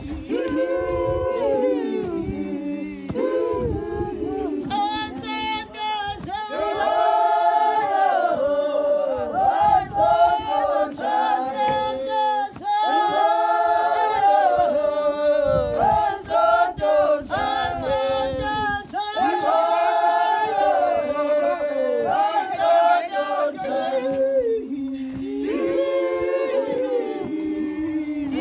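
A group of women singing together unaccompanied, a traditional Xhosa song.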